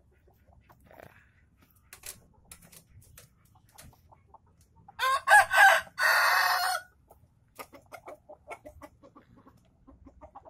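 A Bangkok fighting rooster crows once, about five seconds in, the call lasting nearly two seconds and turning rough toward its end. Faint scattered clicks sound around it.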